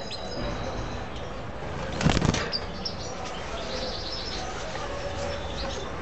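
A brief flurry of small cage birds' wings flapping about two seconds in, with a few faint, short, high chirps a little later.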